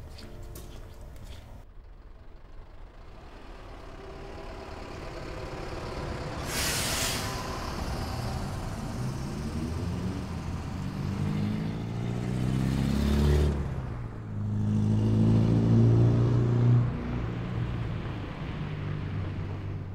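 Heavy road traffic, buses or trucks passing, with engine pitch rising and falling. Two loud hissing rushes come about a third of the way in and again just past the middle, then a loud low engine rumble that fades near the end.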